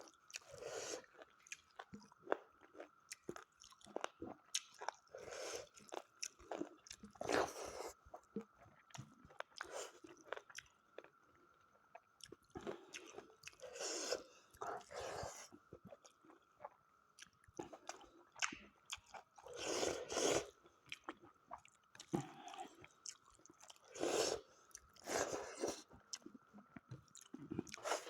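A person eating mutton curry: irregular chewing and biting sounds with occasional crunches.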